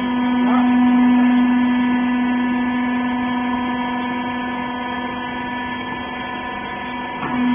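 Hydraulic rag baler's pump unit running with a steady, loud hum. The pitch breaks briefly near the end and then settles again.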